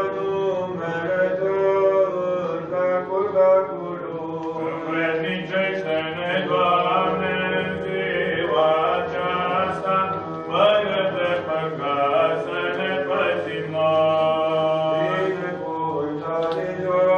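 Orthodox church chant: voices singing a slow hymn in long held and ornamented phrases over a steady low drone.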